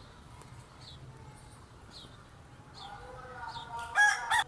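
Caged birds calling: a short, high, falling chirp repeats about once a second. Clucking starts after about three seconds and ends in two loud squawks near the end, typical of a hen.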